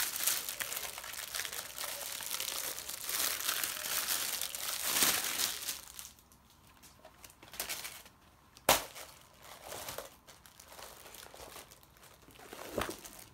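Clear plastic packaging crinkling and rustling as a silicone baking mat is pulled out of its wrap. After about six seconds the crinkling dies down to soft rustles as the mat is unfolded, with one sharp click a little past halfway.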